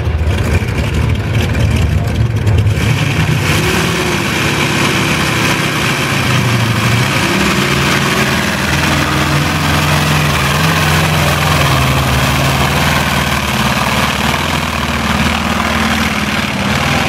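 Free-class pulling tractor's engine running flat out under full load as it drags the weight-transfer sled down the track. It begins as a deep rumble and gets harsher and louder a few seconds in, the engine note wavering up and down as the load builds.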